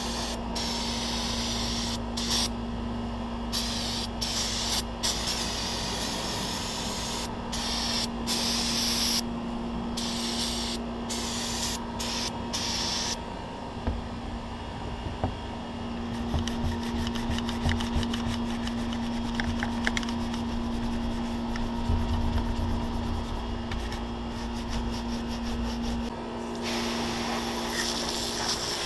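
Aerosol degreaser sprayed onto a rifle in repeated short hissing bursts, followed by a stretch of scrubbing. Near the end a garden hose spray nozzle rinses the gun. A steady low hum runs underneath.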